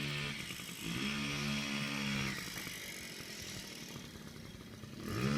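50cc motorbike engine revved in bursts. On each burst the pitch climbs quickly and then holds before dropping away. One burst ends just after the start, a second comes about a second in and lasts a second and a half, and a third begins near the end.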